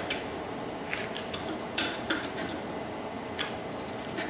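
Sharp metal clinks of a hand tool on a red-hot steel sling hook held in a leg vise, as the bend just past the hook's eye is straightened; several separate clinks, the loudest about two seconds in.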